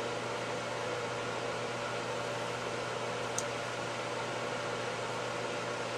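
Steady room hum and hiss, even in level throughout, with one brief, faint high click about three and a half seconds in.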